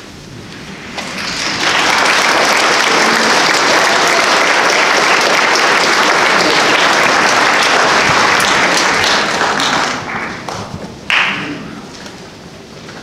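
Audience applauding in an auditorium: the clapping builds about a second in, holds steady, then dies away near the ten-second mark. A short, sharp louder sound rises out of the fading applause about a second later.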